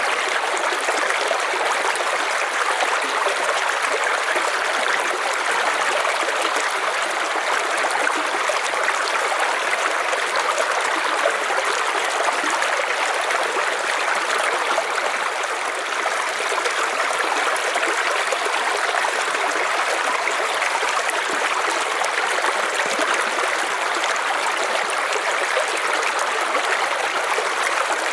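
River water flowing over stones, a steady rushing and babbling.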